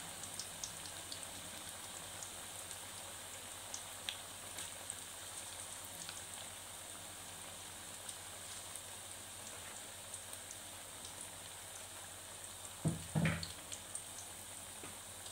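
Pakora batter deep-frying in hot ghee in a karahi: a steady sizzle with fine crackling pops. Near the end, a brief dull knock.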